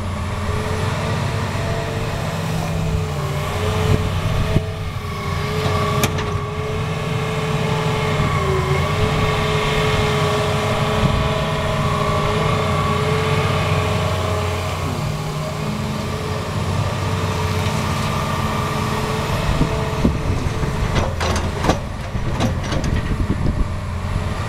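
Hitachi Zaxis 350 excavator's diesel engine running under load with a steady hydraulic whine as it digs coal and swings to load a dump truck. A few sharp knocks come about four to six seconds in and again near the end.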